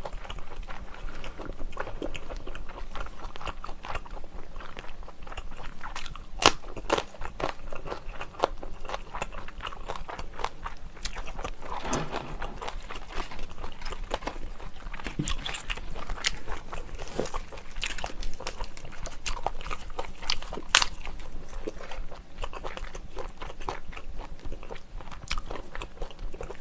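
A person chewing food close to the microphone, starting on a mouthful of grilled scallop: steady wet chewing and biting with many small clicks. Two sharper clicks or crunches stand out, about six seconds in and about twenty-one seconds in.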